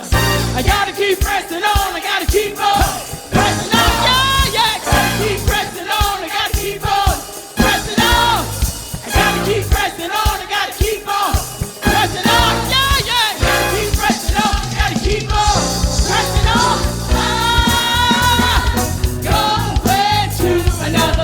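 Live praise band and singers performing a worship song, with vocals over drums and bass.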